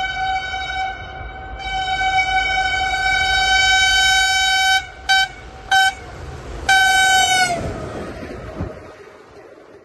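Diesel locomotive air horn sounding two long blasts, then two short toots and a final long blast whose pitch sags as it cuts off. Under it is the rumble of the passenger train running through at speed, which then fades away.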